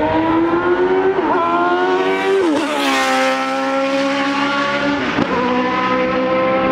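Formula 1600 single-seater race cars accelerating hard on track. The engine note climbs and drops sharply at each upshift, about a second and a half apart. A car passes close about three seconds in, and more upshifts follow.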